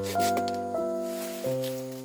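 Background music: a slow melody of held notes that change about every half second and slowly fade.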